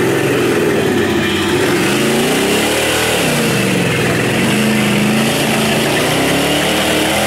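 Lifted mud truck's engine revving hard as it churns through a deep mud pit, its pitch climbing and falling again and again.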